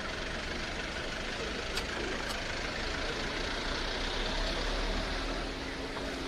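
Engines of a line of police pickup vehicles running, under a steady even noise; a low steady hum comes in about five seconds in.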